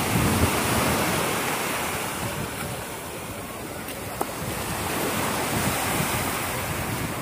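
Small waves breaking and washing up a pebble beach, the surf swelling and easing over a few seconds. A single short click about four seconds in.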